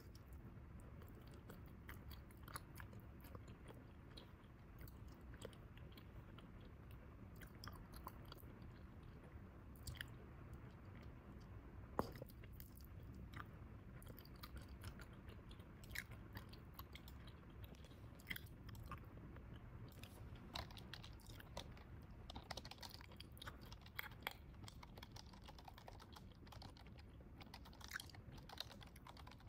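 Bubble gum being chewed quietly: a steady run of soft, wet smacks and small clicks, with one sharper snap about twelve seconds in.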